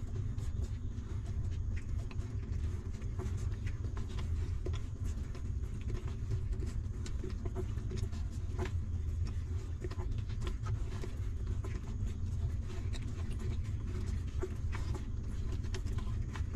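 Newborn puppies suckling at their mother, many small irregular clicks, over a steady low rumble.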